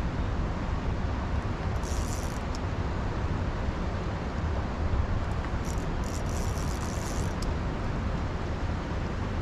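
Steady low rumble of rushing tailwater below a dam, with short high-pitched buzzes about two seconds in and again from about five and a half to seven and a half seconds, likely a spinning reel's drag giving line to a hooked fish.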